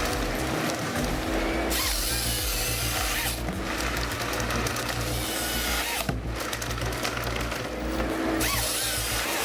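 Power-tool-like machinery running under background music, the machine sound changing abruptly several times as the footage cuts.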